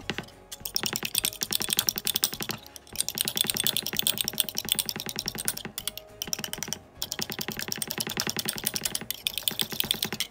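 A metal fork whisking eggs in a white ceramic bowl: rapid, even clicking of the fork against the bowl, in several runs broken by brief pauses.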